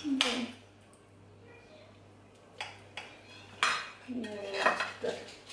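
A metal knife clinks and scrapes against ceramic plates as a wedge of potato omelette is cut and slid onto a small plate. There are a few separate clicks, with a busier run of clinks and scrapes in the last two seconds.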